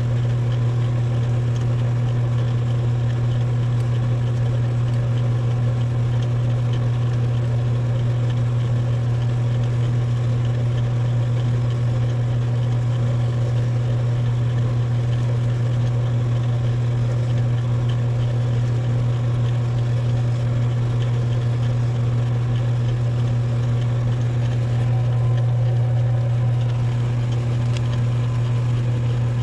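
Metal lathe running at a steady speed, its motor giving a constant low hum with overtones that does not change.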